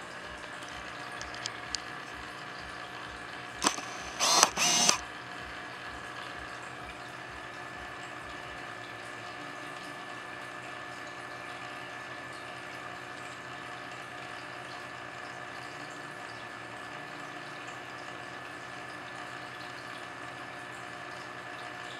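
Nikon D7000's autofocus driving the lens: a sharp click a little over three seconds in, then two short whirring bursts just after, over the steady hum of the aquarium's running water equipment.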